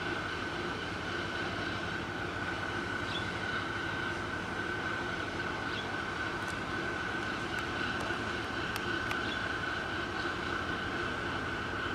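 Steady mechanical drone of a large container ship passing close by: a low rumble with a high, steady whine over it.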